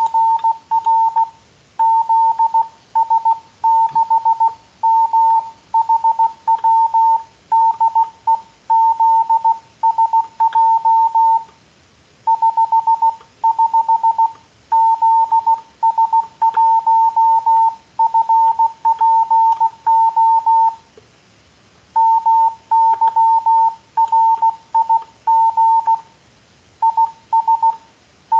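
Morse code (CW) being sent as a single steady beep tone keyed on and off in dots and dashes, grouped into characters with a few brief pauses between words.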